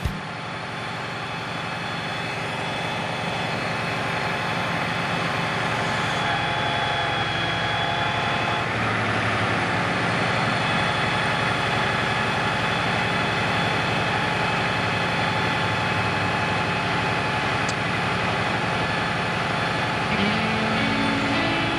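Boom truck's engine running steadily, powering its hydraulic knuckle-boom crane as it lifts a load of roofing shingles.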